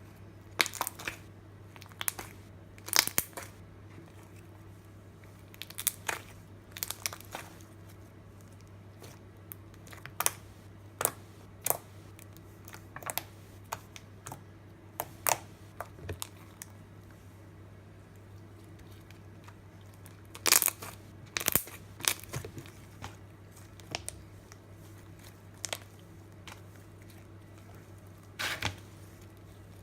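Thick slime being handled, giving irregular sharp pops and clicks with pauses between them.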